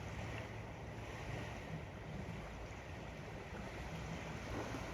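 Ocean waves lapping on the sand, a steady wash of surf.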